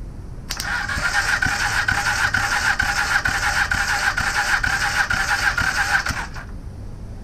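Honda Superdream parallel-twin engine turning over on its electric starter motor with the spark plug out for a compression test: a steady starter whine with a regular chugging beat from the compression strokes. It starts about half a second in and cuts off sharply after about six seconds.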